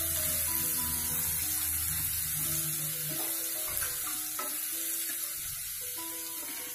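Oil sizzling steadily as green chillies, curry leaves and garlic-cumin paste fry in a non-stick kadhai, with a plastic ladle stirring and scraping now and then. Soft background music plays over it.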